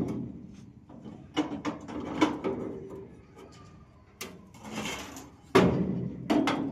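Irregular knocks and bangs, about six of them spread unevenly, one heavier bang near the end with a brief rattle after it, from hands-on work fitting a fridge unit onto an ice cream vehicle.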